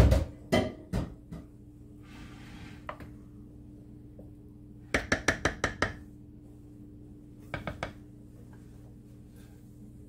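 Wooden spoon stirring thick potato soup and knocking against the stoneware crock of a slow cooker: a few knocks at the start, a soft scraping stir, then a quick run of about seven taps and three more near the end.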